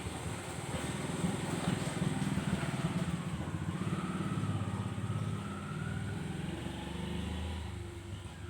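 A motor vehicle engine running past, growing louder over the first two seconds and fading toward the end, with a faint whine in the middle.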